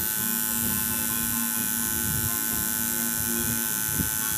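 Electric tattoo machine buzzing steadily with its needle on the skin during tattooing.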